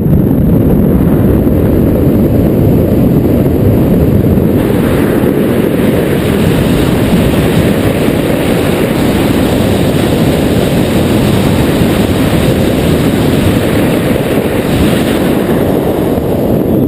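Wind buffeting the camera's microphone in flight under a paraglider: a loud, steady rumble with no engine note. A thinner hiss rides on top from about five seconds in until near the end.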